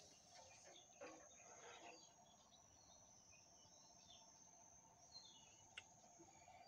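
Near silence: faint lakeside ambience with a steady high-pitched hum and a few faint bird chirps about five seconds in.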